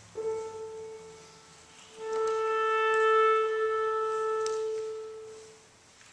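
Tuning before the performance: a single piano note is struck and fades, then a clarinet sounds the same pitch as one long held tone that swells in and fades away.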